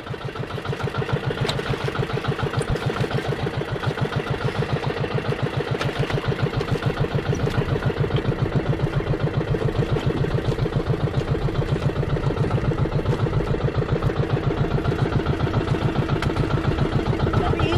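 Motorised outrigger fishing boat's engine running steadily with an even, rapid putter.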